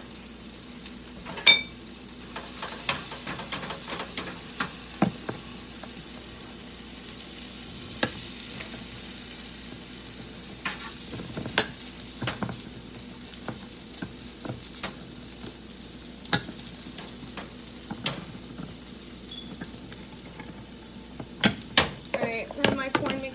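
Canned corn and cherry tomatoes sizzling in olive oil in a skillet, while a utensil scrapes and clicks against the pan as they are stirred. There is a sharp metal clink with a brief ring about a second and a half in.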